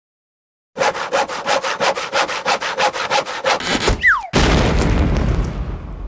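Quick rapid strokes of a saw cutting through wood, about six a second, then a short falling whistle and a loud boom that fades away before cutting off.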